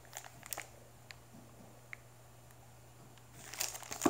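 Mostly quiet with a few faint ticks, then plastic wrapping crinkling as a hand handles it, starting about three and a half seconds in.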